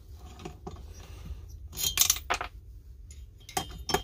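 Metal chainsaw engine parts handled on a workbench: scattered clicks and clinks, a louder metallic clatter about two seconds in, and a few more knocks near the end.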